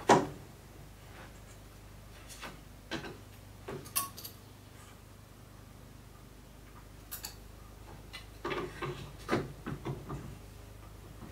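Sparse light clicks and wooden taps of Steinway model B grand piano keys being lifted off and set back onto the keyframe while they are shimmed with paper punchings for key leveling. The sharpest click comes right at the start, and a cluster of taps comes about eight to nine seconds in.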